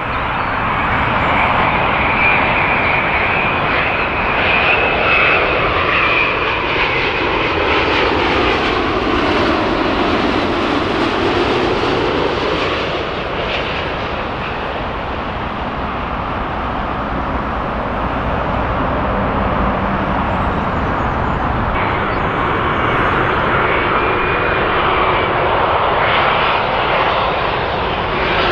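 Jet engines of a landing wide-body airliner, a steady loud rushing noise with a high whine. A sweeping tone in the noise dips in pitch and rises again around the middle, and the high whine comes back in the last few seconds.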